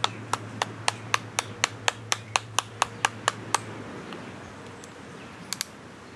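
Knife striking a coconut's hard shell in quick, even taps, about four a second, to crack it open. The tapping stops a little over halfway through, and two more quick taps follow near the end.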